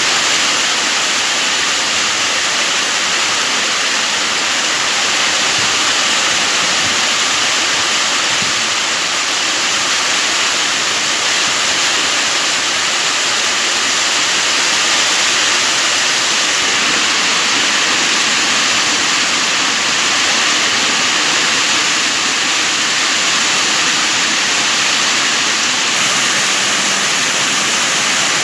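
Heavy rain pouring down steadily, a loud even hiss without breaks.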